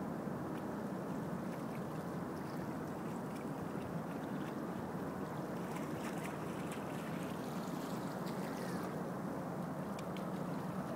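A steady low rumble of riverside noise as small ripples wash over the shingle and mud foreshore, with faint ticking from the water among the pebbles in the middle stretch.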